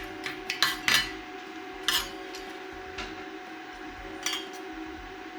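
Small hard objects clicking and clinking as they are handled: a quick run of clicks in the first second, then single clicks about two, three and four seconds in, over a steady faint hum.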